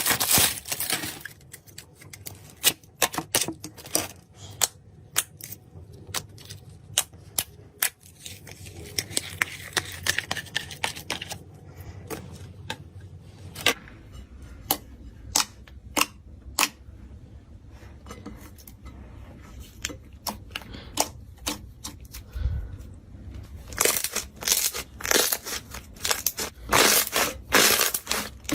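Slime being squished and poked by hand: scattered sharp pops and clicks, with dense crunching in the first second and again near the end.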